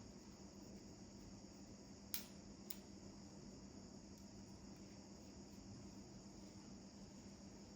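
Near silence: a faint steady high-pitched hiss and a low hum, with two short soft clicks about two seconds in.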